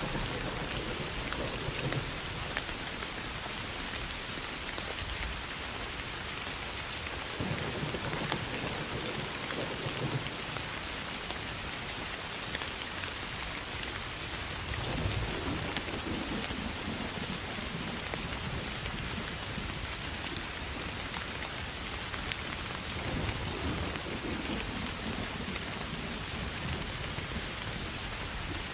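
Steady rain falling, with low rumbles of thunder that swell and fade about four times.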